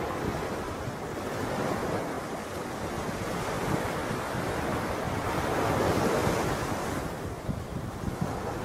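Wind blowing across the microphone: a steady rushing noise with a ragged low rumble, swelling slightly about five or six seconds in.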